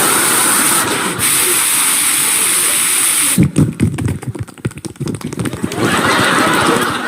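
A man's voice imitating a running shower into a microphone: a steady hissing spray for about three seconds, then a run of quick clicking and popping mouth noises, and the hiss again near the end.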